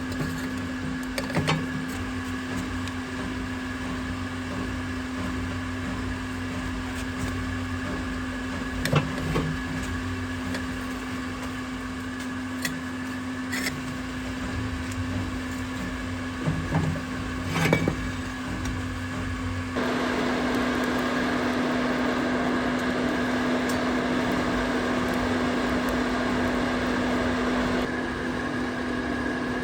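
Steady motor hum with a few sharp knocks scattered through it; the hum grows louder and rougher for about eight seconds in the second half, then drops back.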